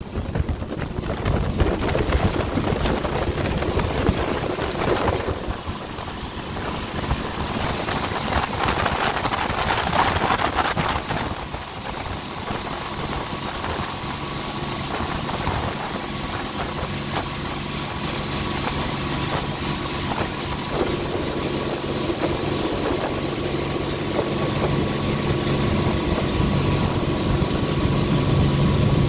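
Boat engine running under way across choppy water, with wind rushing over the microphone; the engine's steady hum comes through more clearly from about halfway through and grows slightly louder toward the end.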